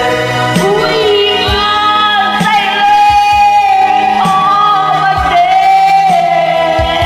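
Slow ballad music with long held, wordless sung or choir-like notes over a bass line that steps to a new note every second or so.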